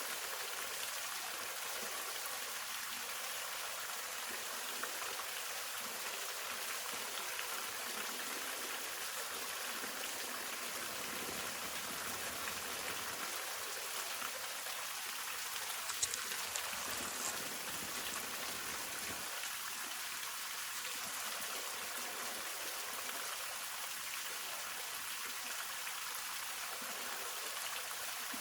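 Waterfall: water falling and splashing in a steady, hissing rush, with a faint click about halfway through.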